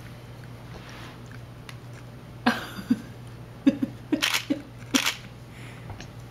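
A baby's mouth noises while being spoon-fed her first rice cereal: short breathy puffs and sputters with small grunts and clicks, bunched between about two and a half and five seconds in, over a steady low hum.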